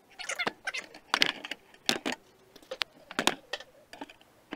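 Irregular sharp clicks and clatters of small hard objects being handled, a few with a short metallic ring, spaced a fraction of a second to about a second apart.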